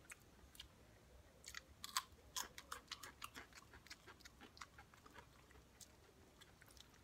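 Faint chewing of a mouthful of fresh chopped vegetable salad (cucumber, tomato, onion and cheese): soft, irregular crunches and wet mouth clicks.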